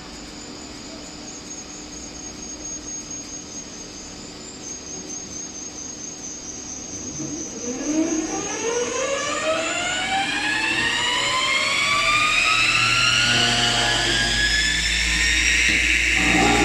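Electric motor of an automatic direct drive welding machine spinning up. A low steady hum gives way, about halfway through, to a whine that rises steeply in pitch and grows louder, then levels off near the end with a low rumble underneath.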